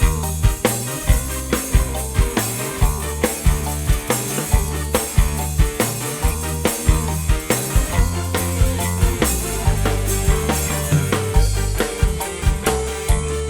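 Dangdut koplo music played loud through a large PA sound system, with heavy bass and a steady, fast drum beat.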